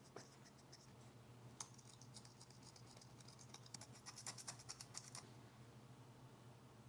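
Faint scratching as small metal battery-connector contacts are scrubbed clean with acetone. It comes as a quick run of rapid scratches from about a second and a half in to about five seconds, after a single small click at the start.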